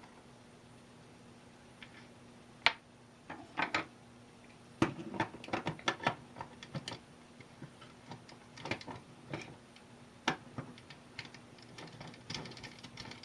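Small metal parts clicking and clinking in scattered sharp taps as a three-jaw chuck is fitted onto a mini metal lathe's spindle by hand, metal tool against metal, over a faint steady hum.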